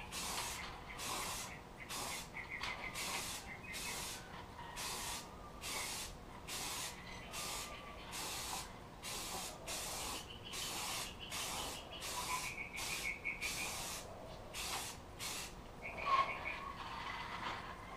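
Aerosol can of primer filler spraying in short, quickly repeated hissing bursts, about three every two seconds.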